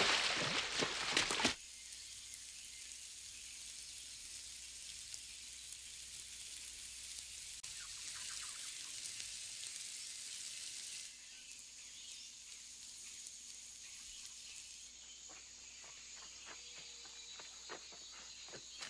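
A person runs splashing through shallow water for about the first second and a half. Then comes a steady high hiss of jungle ambience. In the last few seconds, footsteps crunch irregularly through forest-floor debris.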